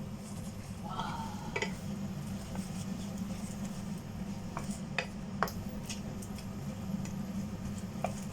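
A few light clinks of a metal utensil against cookware, spaced a second or more apart, over a steady low hum.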